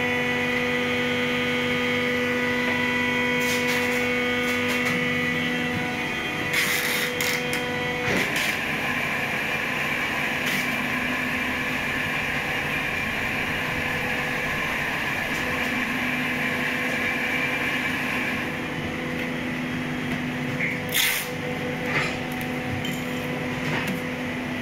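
Plastic injection moulding machinery running steadily: a hum with several held tones, giving way about eight seconds in to a denser, higher machine whir, with a few sharp clicks and knocks.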